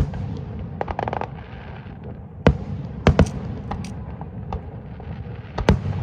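Aerial fireworks bursting overhead: sharp bangs at irregular intervals, some in quick pairs, with a short burst of crackling about a second in.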